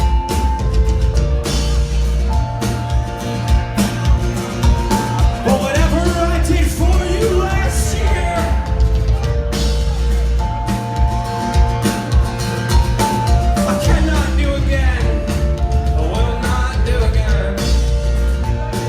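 Rock band playing live and loud, recorded on a phone: heavy bass, drums, guitar and held sustained notes. Stretches of singing come through without clear words.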